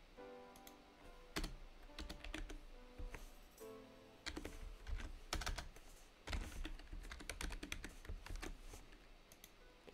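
Typing on a computer keyboard: irregular keystroke clicks in quick runs, with quieter background music underneath.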